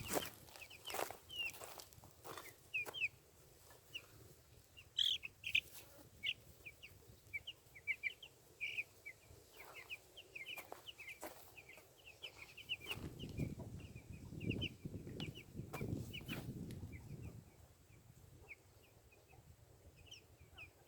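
Chickens clucking faintly, with many short high chirps scattered throughout and a few sharp knocks. A louder low rumble comes in from about two-thirds of the way through and lasts several seconds.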